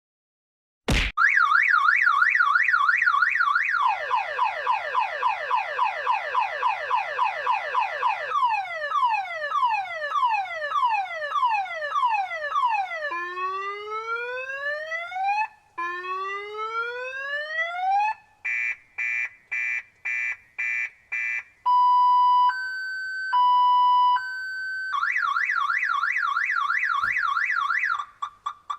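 Motorbike anti-theft alarm cycling through its tone programs. It starts with a sharp click about a second in, then plays a fast warble, rapid falling chirps, slower falling sweeps, rising whoops, quick repeated beeps and a two-tone hi-lo, then returns to the fast warble before cutting off near the end.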